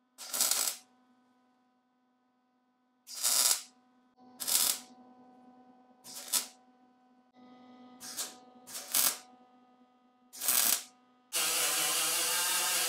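Seven short MIG tack welds on thin sheet steel, each a brief crackle of about half a second, spaced a second or two apart. About eleven seconds in, a small handheld disc grinder starts and runs steadily against the metal.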